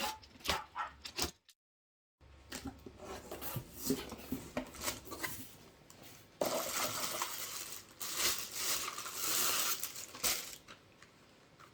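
Unboxing handling: hard plastic vacuum parts clicking and knocking against each other, then several seconds of plastic wrapping rustling.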